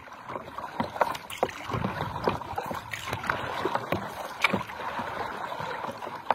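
Paddle strokes from a stand-up paddleboard in calm water: the paddle blade dipping and pulling, with splashing, dripping and gurgling water and short sharp clicks, the sharpest about four and a half seconds in.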